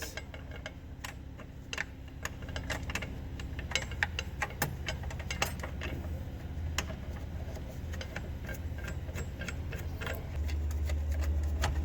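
Irregular light metallic clicks and clinks from the arbor bolt and washer of a miter saw being fitted and threaded on by hand to hold a new blade, over a low steady hum that grows louder near the end.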